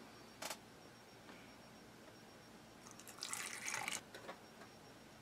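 Water trickling into a small plastic water dish for about a second, about three seconds in, after a short click near the start.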